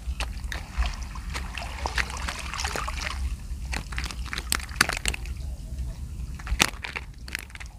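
Water sloshing and splashing, with many short sharp clicks and knocks scattered through it, over a steady low rumble.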